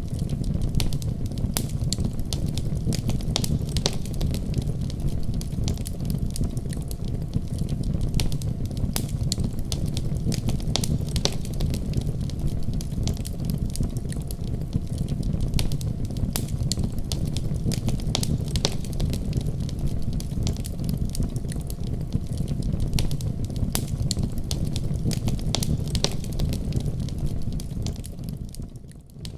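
Wood fire in a fireplace crackling and popping, with many sharp crackles over a steady low rumble of flames. The sound dips briefly in level near the end.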